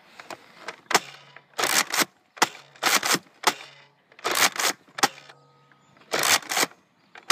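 A run of sharp clacks and short crunching bursts, about one a second and some in quick pairs, from Nerf blasters being primed and fired.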